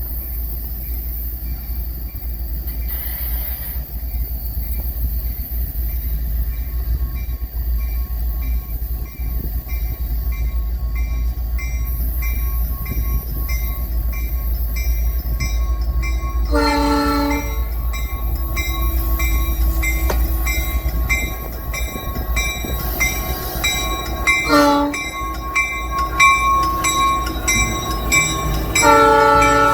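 A Nathan Airchime New Cast P3 locomotive horn sounds three short blasts over the low, steady rumble of a passing freight train. The first blast, about a second long, comes a little past halfway, a shorter one comes later, and the last is near the end. A high ringing pulses about twice a second underneath.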